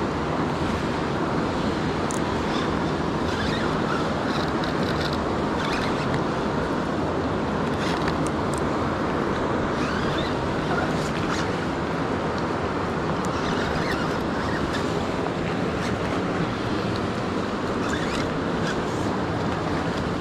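Steady rush of river current running over rocks, with a few faint scattered ticks.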